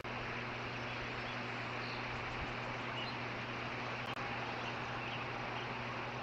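Steady background hiss with a low electrical hum, unchanging throughout, and a few faint short high chirps.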